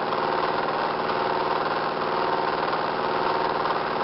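Four-pole, eight-transistor pulse motor running steadily, a fast pulsing hum from its coils being switched as the rotor turns. It is under the load of its add-on generator coil, which has pulled its speed down.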